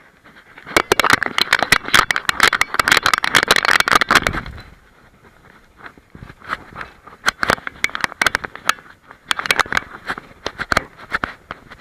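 Rubbing, crackling and scraping on a camera strapped to a walking German Shepherd: fur and harness working against the mount, with clicks of its paws on a stony path. A dense, loud stretch of rustling runs from about a second in until about four and a half seconds, then it thins to scattered clicks and scrapes.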